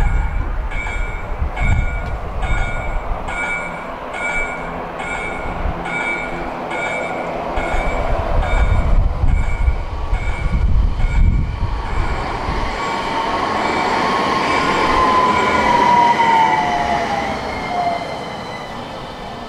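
An electronic warning bell at a tram crossing chimes in steady pulses, about one and a half a second, until around 11 seconds in. Then an SL tram pulls into the platform, its rumble swelling as it brakes, with a wheel squeal that slides down in pitch as it slows to a stop.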